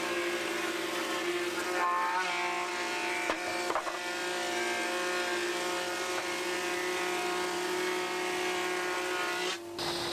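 Jean l'Ébéniste 305 combination planer-thicknesser running in thicknesser mode with its chip extractor, as beech boards are fed through to be brought down in thickness. A steady motor whine whose pitch dips briefly about two seconds in, with two short knocks a little later. It cuts off abruptly just before the end.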